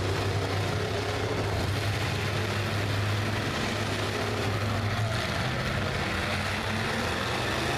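Demolition derby cars' engines running together as a steady low drone, with no separate crash stands out.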